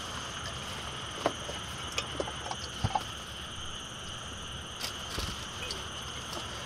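Steady, high-pitched chirring of an outdoor insect chorus, with a few faint clicks and taps scattered through it.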